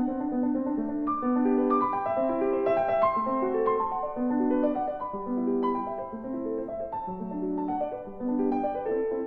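Background piano music: a steady run of single notes rising and falling in broken chords.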